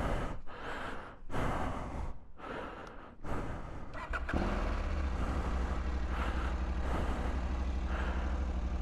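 KTM 890 Adventure's parallel-twin engine running as the motorcycle rides at low speed. Uneven bursts of noise come over the first few seconds, then a steady low engine drone from about four seconds in.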